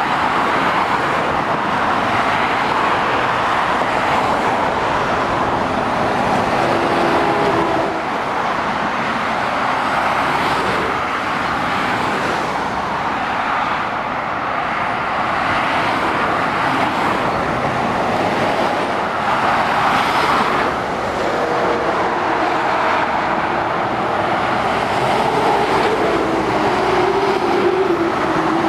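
Steady motorway traffic passing: tyre noise and the engines of cars, a coach and heavy lorries. A heavy vehicle's engine note comes through about seven seconds in and again near the end.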